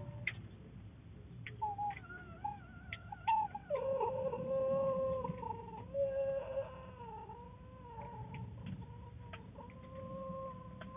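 A long, wavering animal call in drawn-out notes, starting about two seconds in and loudest between about four and six and a half seconds.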